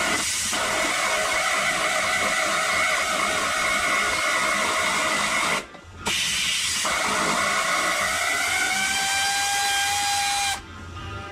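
Air-powered ratchet running with a hissing whine in two spells of about five seconds each, split by a brief stop, as it spins out the sway bar bolts. Near the end of the second spell the whine rises in pitch as a bolt comes free.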